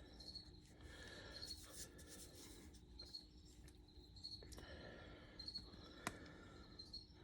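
Near silence: faint crickets chirping about once a second, with light handling noises and one sharp click about six seconds in.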